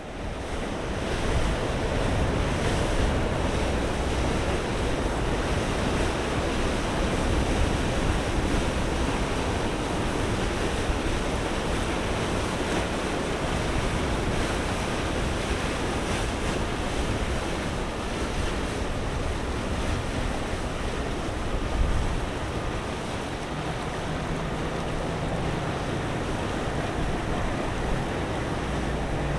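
Sea waves washing and breaking with wind buffeting the microphone, a steady rumbling wash. A low steady hum joins near the end.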